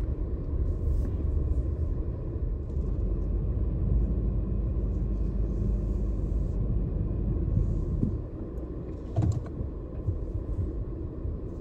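Low, steady rumble of a Jeep in deep snow, heard from inside the cabin. The rumble eases about eight seconds in, and a short knock follows a second later.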